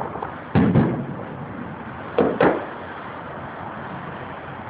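Fireworks shells bursting at a distance: several sharp booms, one about half a second in and two in quick succession a little past two seconds, over a steady background hiss.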